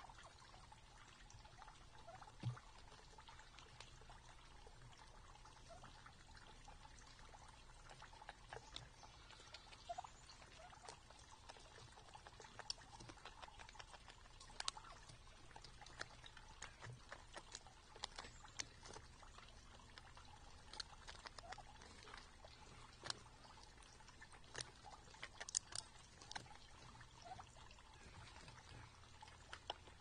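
Faint, scattered clicks and ticks of wild turkeys pecking grain from a feed tray and the ground, and a blacktail fawn eating from a feeder dish. The clicks come thickest through the middle, over a low steady background.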